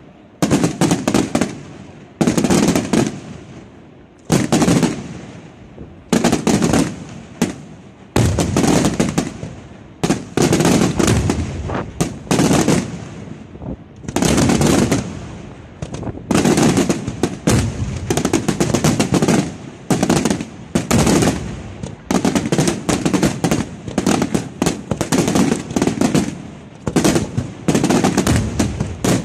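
Aerial fireworks shells bursting in rapid succession: loud sharp bangs in volleys every one to two seconds, growing denser and almost continuous over the last third.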